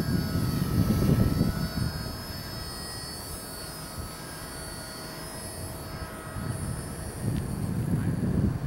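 Blade mCPX BL collective-pitch micro helicopter in flight, its brushless motors giving a high whine that wavers slightly in pitch and fades out near the end. Wind rumbles on the microphone underneath.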